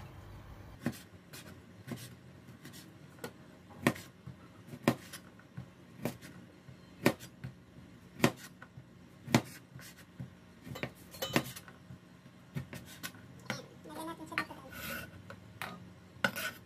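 Cleaver slicing through a sausage on a cutting board, the blade knocking the board about once a second. Near the end, a few ringing clinks as the slices go into a steel bowl.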